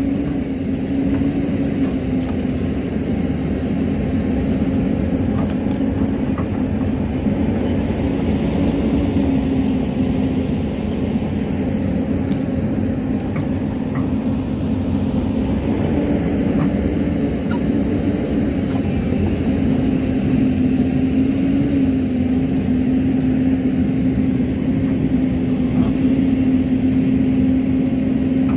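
Hyundai crawler excavator's diesel engine running steadily under digging load, a strong steady hum that wavers slightly in pitch, with a few faint clicks of soil and stones as the bucket works the hillside.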